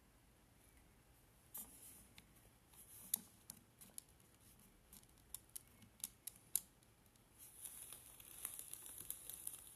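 Faint handling noise from a toy loader being moved through sand: scattered small clicks over the first several seconds, then a soft scraping rustle near the end.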